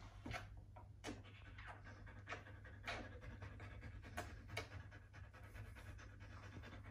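Siberian husky panting softly, faint, with a few scattered brief sounds.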